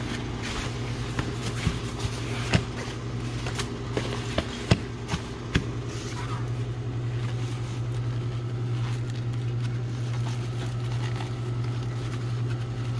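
Fabric metal-detector carry bag being handled: light rustling and several sharp clicks in the first half, over a steady low hum that continues throughout.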